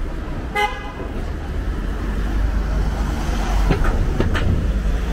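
A single short horn toot about half a second in, over a steady low rumble of passing vehicles, with two brief higher-pitched sounds later on.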